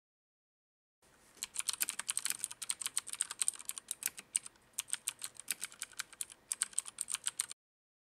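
Typing on a Filco Majestouch Minila Air mechanical keyboard with Cherry MX Blue switches: a quick run of sharp key clicks starting about a second and a half in, with a brief pause midway, stopping shortly before the end.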